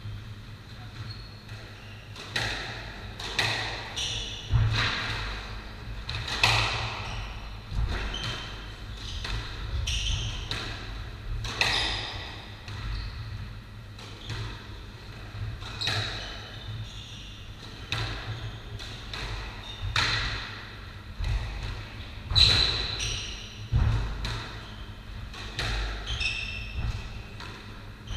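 Squash rally: the ball is struck by rackets and hits the court walls, giving sharp echoing hits about every second or two.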